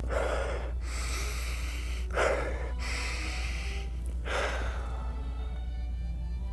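A man takes three long, noisy sniffs about two seconds apart, deeply inhaling the fumes off a paint palette held against his nose.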